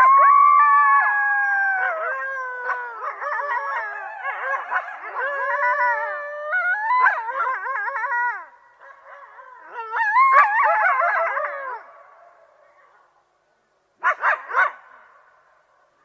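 A group of coyotes howling and yipping together, several wavering, rising and falling voices overlapping, then a short burst of sharp yelps near the end.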